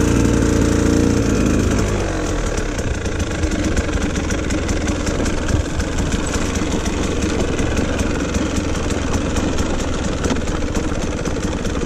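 Two-stroke engine of a 2019 KTM 150 XC-W dirt bike, breathing through an FMF Turbine Core 2 silencer, running as the bike is ridden. The revs drop over the first second or two, then it runs fairly steadily.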